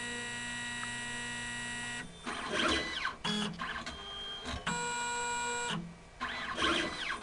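Motors of an automated pipetting robot whirring as its arm moves a pipette tip into a test tube and dispenses water. Steady whining tones alternate with whines that rise and fall in pitch as the arm speeds up and slows down, with short pauses about two seconds in and near six seconds.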